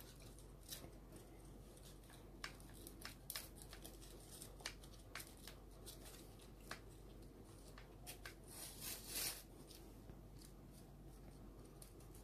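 Light handling noises from a sanding belt being fitted onto a Mollar belt sander head: scattered small clicks and rubs of the parts, with a louder scraping rustle about nine seconds in.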